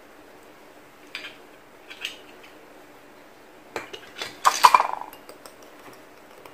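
Small metal wire whisk clinking and rattling against a ceramic bowl as it is picked up and starts whisking beaten egg and cream. The loudest clinks come about four and a half seconds in, after two light clicks earlier.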